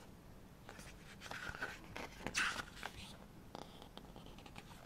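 Pages of a paper lyrics booklet being handled and turned: a few soft rustling swishes, the loudest about two and a half seconds in.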